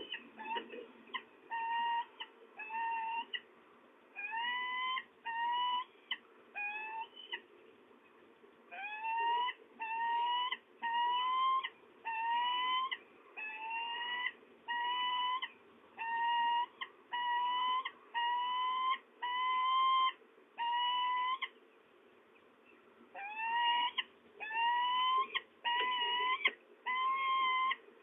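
Peregrine falcon calling: a long series of clear, rising notes, about one a second, with two short breaks.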